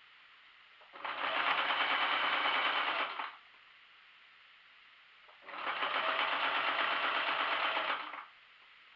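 Domestic sewing machine stitching a hem in two runs of about two and a half seconds each, separated by a pause of about two seconds while the fabric is turned.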